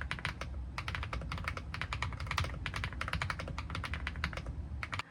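Typing on an AULA F99 mechanical keyboard with pre-lubed linear switches: fast, irregular runs of keystroke clacks with brief pauses between them.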